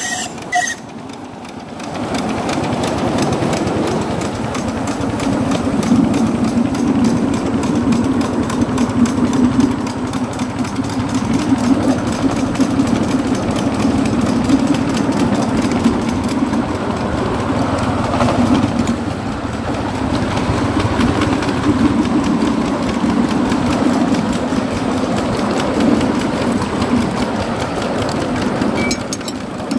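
A 7¼-inch gauge miniature steam locomotive running along the line, heard from just behind it: a steady, fast, even beat that picks up after a short dip about a second in.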